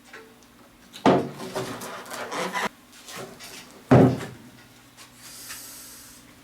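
Sharp knocks and a stretch of rubbing and scraping as a fibreglass (FRP) boat hull is worked loose from its mold: one knock about a second in, followed by about a second and a half of scraping, and another hard knock near four seconds in.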